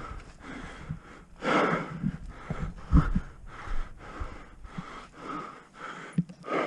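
A person breathing hard in short, noisy breaths, the loudest about a second and a half in.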